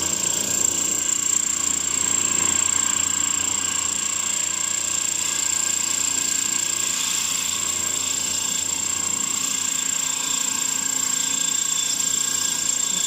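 Small drill-powered band saw running steadily, with a constant high-pitched whine over the running noise.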